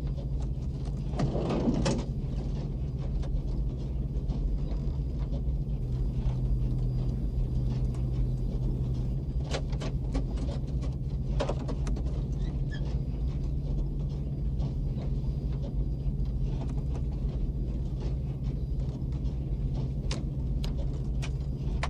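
Steady low drone of a B-52 bomber's engines heard from inside the cockpit, with a brief rustle about a second in and a few faint clicks around ten seconds in.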